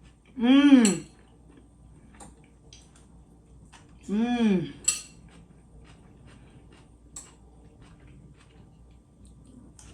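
A woman voicing two drawn-out 'mmm' sounds of enjoyment while tasting food, each rising then falling in pitch, one near the start and one about four seconds in. Between them, a few light clinks of cutlery on a plate.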